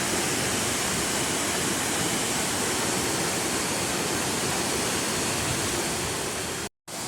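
Waterfall rushing, a steady, even roar of falling water. It cuts out abruptly near the end, then returns more faintly.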